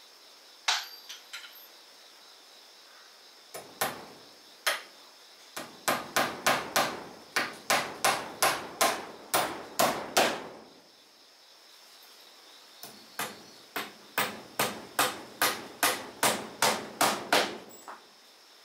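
Hammer nailing wooden wall cladding boards: a few single blows, then two long runs of quick strikes, about three a second, with a short pause between. A steady high insect buzz runs behind.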